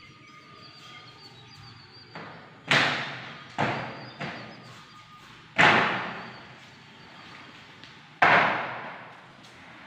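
uPVC sliding door panels being slid along their tracks and knocking to a stop against the frame: six sharp thuds, the loudest about a quarter, a half and four-fifths of the way through, each dying away over about a second.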